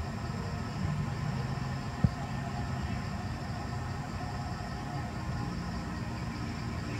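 Steady low outdoor rumble with a faint steady high hiss, and a single sharp click about two seconds in.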